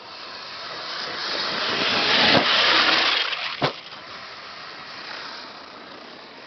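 Electric radio-controlled monster truck (HPI Savage Flux) driving across grass: a rushing noise that swells to its loudest about two and a half seconds in and then falls back, with a sharp click a little after the middle.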